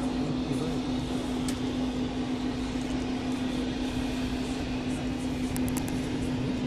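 AH-64 Apache attack helicopter running on the runway: a steady, even hum of its engines and rotors.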